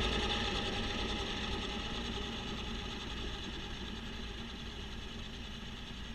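Kubota B2650 compact tractor's three-cylinder diesel engine and its front-mount snowblower running steadily, fading smoothly as the tractor drives away.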